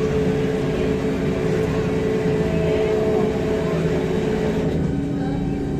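Tour boat's engine running with a steady drone and low rumble. Near the end the drone's pitch drops and the sound becomes duller.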